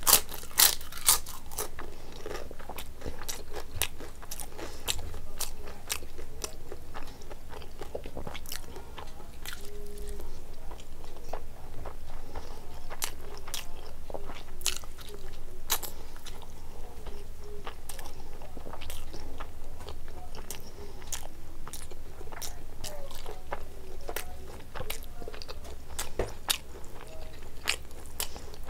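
Close-up eating sounds: a bite of crisp papad cracks loudly twice in the first second, followed by steady chewing with scattered crunches and wet mouth noises.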